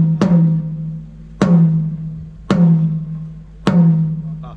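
A drum-kit tom struck single hits, four times about once a second, each hit ringing out with a low tone that dies away before the next: a drum sound check.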